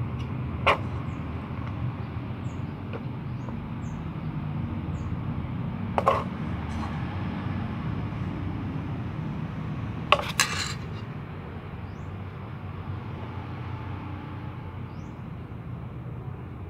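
Steady low background rumble, like distant traffic, with a few sharp clicks: one about a second in, one at six seconds and two close together near ten seconds.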